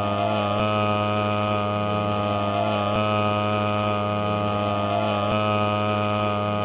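A steady, loud hum of many held tones that repeats in a loop, with a faint seam about every two and a half seconds.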